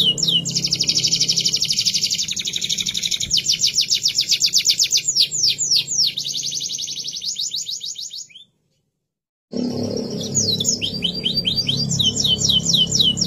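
Domestic canary singing: rapid trills of quickly repeated sweeping notes. The song breaks off for about a second of dead silence a little past two-thirds through, then resumes with changing trills.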